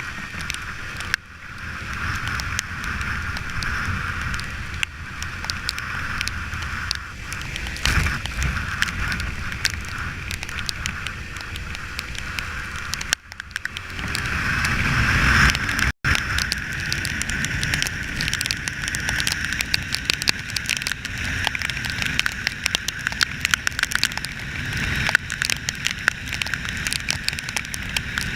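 Ride noise from a Kawasaki Ninja 300 parallel-twin on the move: wind rushing and crackling over the microphone with the engine underneath. The sound swells about fourteen seconds in, as if the bike accelerates, then cuts off suddenly for an instant at sixteen seconds before the steady rush resumes.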